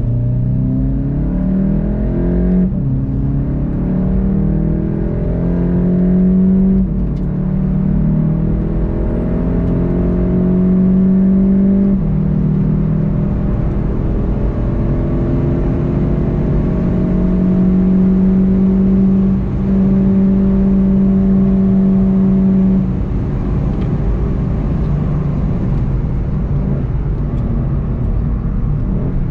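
VW Golf GTI TCR's turbocharged 2.0-litre four-cylinder heard from inside the cabin, accelerating hard through the gears. The note climbs and drops back at each upshift, about 3, 7, 12 and 19 seconds in. A few seconds later the throttle comes off and the note falls away as the car slows.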